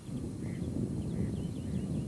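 Outdoor shoreline ambience: a low, uneven rumble that grows louder right at the start, with faint high chirps of small birds over it.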